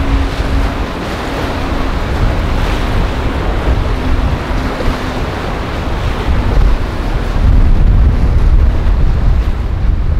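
Wind buffeting the microphone over choppy inlet water and boat wake, gusting loudest near the end. Under it a large motor yacht's engines give a faint steady drone that fades out about halfway through.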